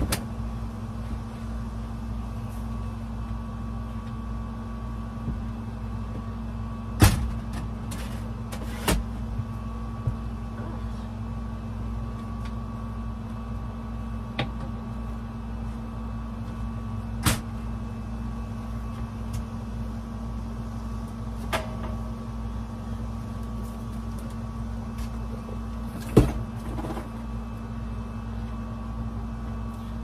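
Steady hum of a running air-conditioner unit, with a few sharp knocks and clatters of things being handled now and then, the loudest about seven seconds in and near the end.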